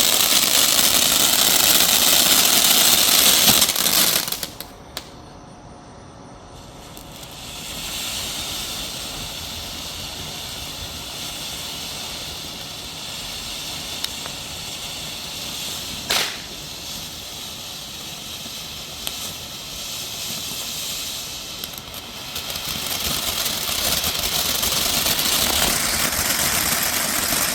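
Consumer firework fountain spraying with a loud, steady hiss and crackle. It drops away about four seconds in, picks up again a few seconds later and swells near the end, with a few sharp pops in the middle.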